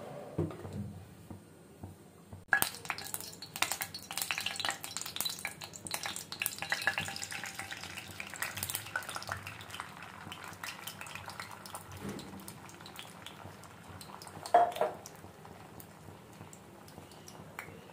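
Beaten egg poured into hot oil in a non-stick frying pan, sizzling and crackling sharply from about two and a half seconds in, then slowly settling to a softer sizzle. A single knock of a utensil or bowl on the pan comes near the end.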